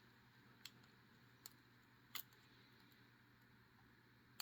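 Near silence with a few faint, sharp clicks, about three in the first half and one at the very end: a lock pick and tension wrench working in the core of a Master Lock S31 lockout padlock.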